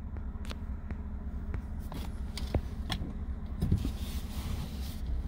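Car driving, heard from inside the cabin: a steady low rumble with a string of sharp clicks about twice a second.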